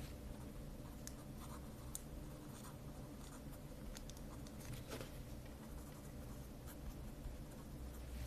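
Pen writing on paper: faint, irregular scratching strokes as a few words are handwritten, over a steady low hum.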